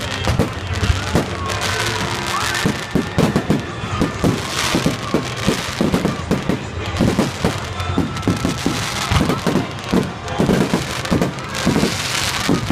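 Fireworks going off in quick succession, with many sharp bangs and crackles a second and a few whistling rising tones between them.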